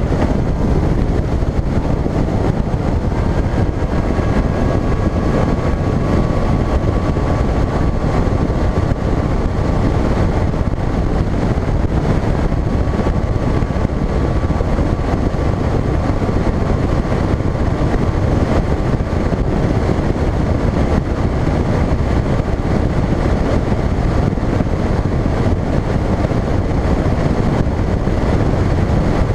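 Bass boat running at speed over choppy water: a steady rush of wind on the microphone mixed with outboard engine and hull noise, with a faint steady whine above it.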